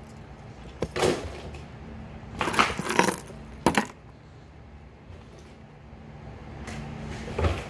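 Hard plastic lipless crankbait being shaken in the hand, its rattle and treble hooks clicking in several short bursts.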